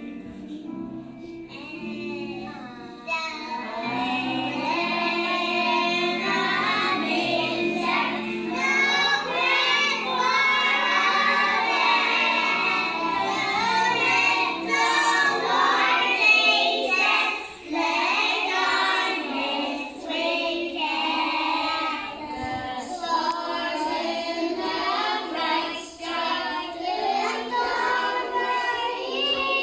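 A group of young nursery children singing a Christmas carol together, coming in about three seconds in over an instrumental accompaniment. The accompaniment thins out about halfway, and the children's voices carry on.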